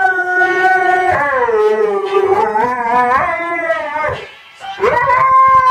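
Siberian husky howling in long notes that hold, then glide down and waver up and down, 'singing' along to a song. The howling breaks off briefly about four seconds in, then a new howl rises and holds.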